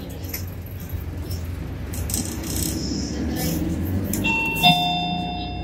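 City bus running, its engine rumbling steadily with light rattles in the cabin. About four seconds in, the bus's electronic chime sounds two falling doorbell-like notes that ring on.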